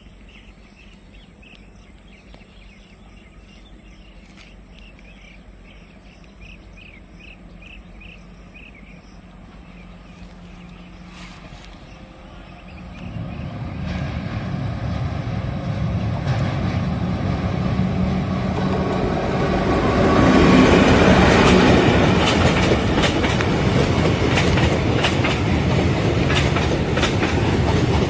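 Electric-locomotive-hauled passenger train approaching over a steel truss bridge, its rumble building from about halfway through. The coaches then pass close with loud, rapid wheel clatter over the rail joints. Before the train arrives there are only faint repeated chirps.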